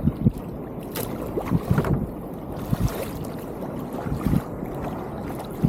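Kayak on the water with irregular splashes and sloshing around the hull, and wind buffeting the microphone in low, uneven thumps.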